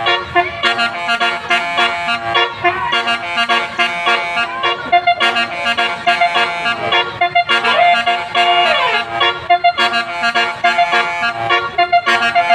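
Basuri musical bus horn playing a reedy, repeating melody of held and quick notes, with a sliding down-and-up pitch sweep about eight seconds in.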